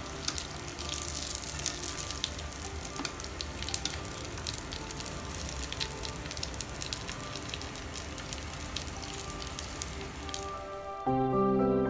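Tofu skin frying in hot oil: a steady sizzle full of sharp crackling pops. Music comes in loudly about a second before the end.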